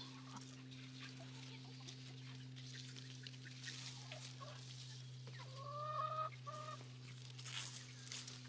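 Cherry-tree leaves and branches rustling and crackling as cherries are picked by hand, with a chicken giving one drawn-out call and a short second note about five and a half seconds in. A steady low hum runs underneath.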